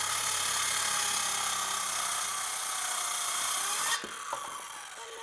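Handheld circular saw cutting across the end of a glued-up maple board, a steady loud cutting noise that stops abruptly about four seconds in as the cut finishes, followed by the motor winding down with a falling whine.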